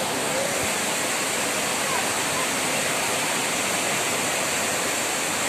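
Large two-stream waterfall, about 30 m high, pouring onto rocks: a steady rush of falling water.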